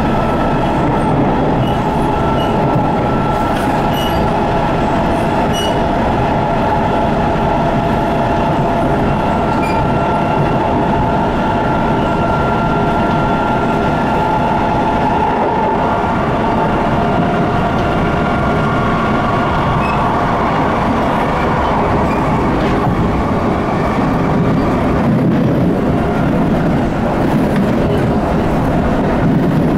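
SMRT C151 metro train running between stations, heard from inside the carriage: a steady rumble of wheels on the rails with a whine of the motors over it. The whine shifts and fades about two-thirds of the way through.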